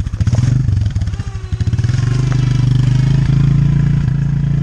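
Four-wheeler (ATV) engine running hard. It chugs unevenly at first, then settles into a steady, higher drone about two seconds in.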